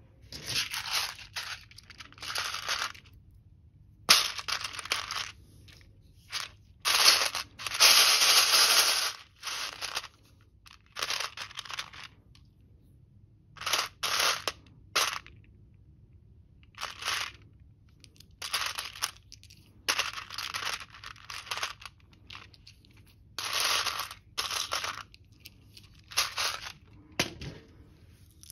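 Loose plastic LEGO pieces clattering and scraping in a tray as a hand rummages through them. It comes in more than a dozen bursts of a second or two, with short pauses between.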